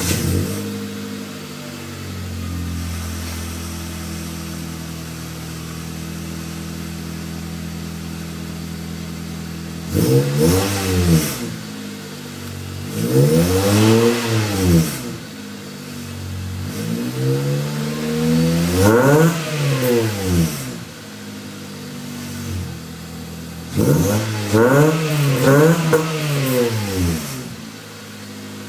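2001 Honda Civic EX's 1.7-litre four-cylinder, breathing through a header, catalytic-converter delete and HKS Hi-Power axle-back exhaust, settling from a fast idle just after starting and then idling steadily. From about ten seconds in it is revved four times, pitch rising and falling each time, and the last rev is a run of quick blips.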